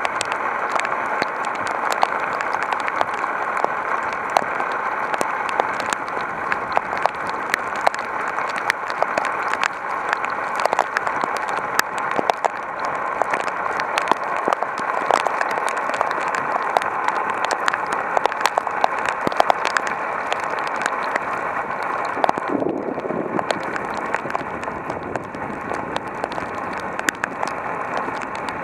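Heavy rain pouring down steadily, a dense hiss of drops with many sharp individual splats and ticks on hard surfaces. The sound thins briefly about three quarters of the way through, then carries on.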